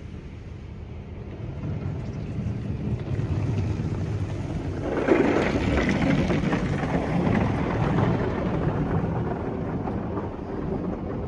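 Oasis Typhoon touch-free car wash spraying a car, heard from inside the cabin: a steady low hum of the machine at first. About halfway through, the spray reaches the windshield and the rush of water and foam on the glass turns suddenly loud, then eases off over a few seconds.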